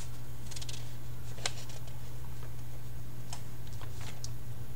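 Sheets of paper being handled and shuffled, giving a few short rustles and sharp crackles, over a steady low hum in the room.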